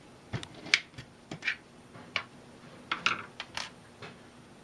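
Irregular sharp clicks and light knocks, about a dozen, from parts and tools being handled at a mini metal lathe while the workpiece is changed; the lathe motor is not running.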